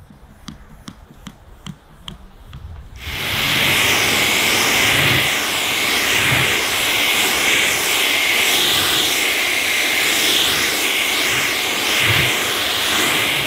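A few light crackles of plastic protective film being peeled off a windshield. About three seconds in, a pressure washer spray starts abruptly and runs as a steady loud hiss of water jetting onto the glass and bodywork.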